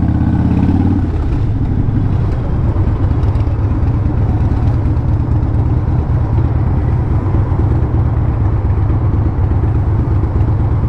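Harley-Davidson V-twin engine, the bike under way for about the first second, then idling steadily at a stop.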